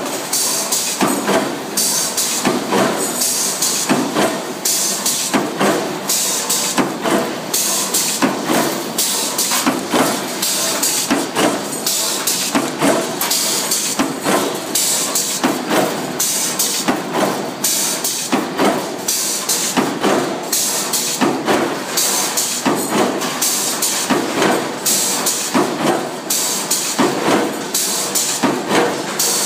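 An 80-ton power press stamping stainless steel hinge blanks, a sharp metal clank at each stroke in a steady rhythm of about two a second, over a constant hiss.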